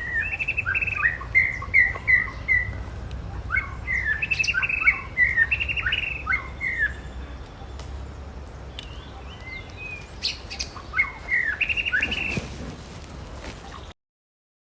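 High, chirping animal calls in quick runs of short, downward-sweeping notes, coming in three bursts. The sound cuts off suddenly just before the end.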